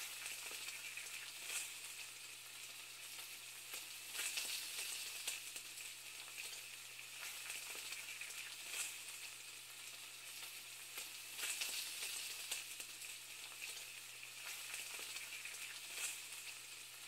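Food frying in a pan: a steady sizzle with scattered crackles and pops.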